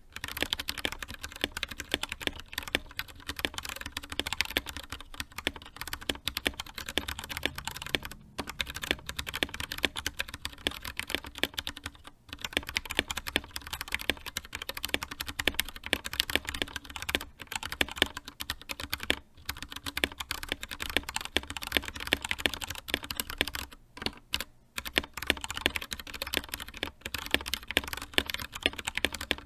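Fast, continuous typing on an Anne Pro 2 60% mechanical keyboard with Gateron Brown tactile switches, a dense run of key clacks with brief pauses about 8, 12, 19 and 24 seconds in.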